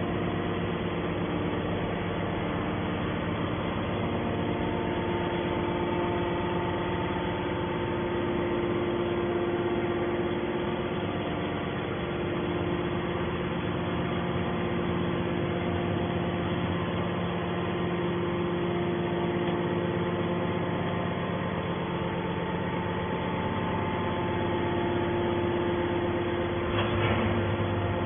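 The engine of a mobile scrap-metal baler running steadily, with a brief clatter near the end.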